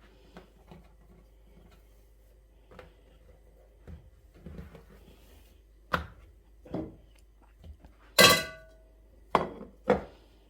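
Kitchenware being handled: a series of knocks and clatters, the loudest a ringing clang about eight seconds in, followed by two more knocks near the end.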